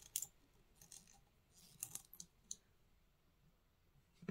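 A handful of faint, sharp clicks of the plastic fountain-pen parts as they are handled and pried at, with near silence between them.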